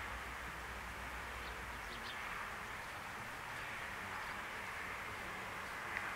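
Steady outdoor background noise with a few short, faint high chirps, and a single sharp click near the end.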